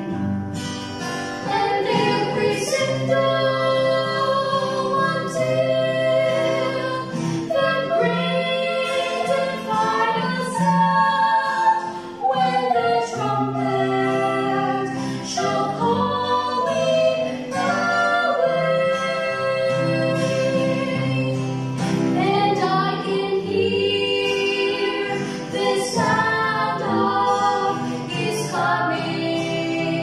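Two women and a man singing a gospel song together, accompanied by an acoustic guitar.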